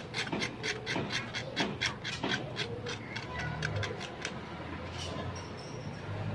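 Metal spatula scraping old paint off a motorcycle engine crankcase in quick short strokes, about four a second, that thin out after about four seconds.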